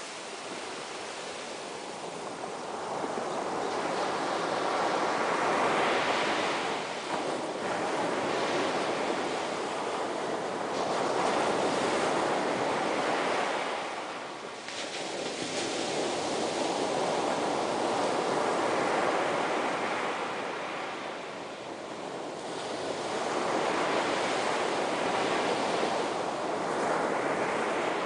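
Ocean surf breaking and washing in, a rushing wash that swells and eases in long surges about every six seconds.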